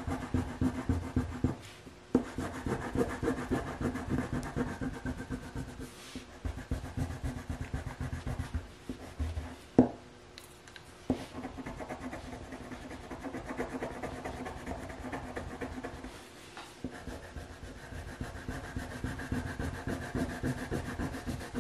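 Brown crayon scribbling on paper in quick back-and-forth strokes, shading in a large area. The rubbing stops briefly a few times, and there is one sharp tap just before ten seconds in.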